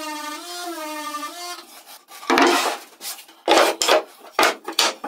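Random orbital sander running, its whine dipping and rising in pitch as it is worked over the wood, stopping about a second and a half in. About two seconds in, a run of short, loud rubbing and scraping strokes follows as wooden slats are handled on a plywood board.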